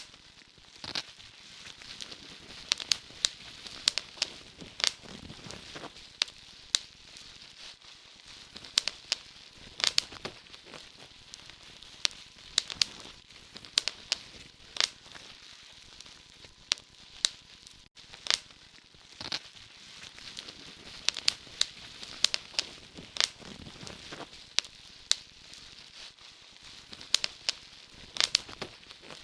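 Campfire crackling: irregular sharp pops and snaps over a soft steady hiss.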